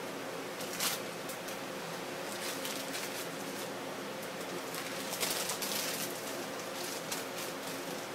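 Crumpled aluminium foil crinkling in short, irregular rustles as it is pressed and twisted against wet spray paint, the longest bout about five seconds in, over a steady background hum.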